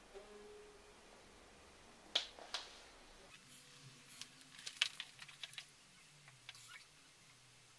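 Bicycle front wheel spinning freely in a repair stand, nearly silent, with scattered faint clicks and ticks: two at about two seconds, then a run of them in the middle.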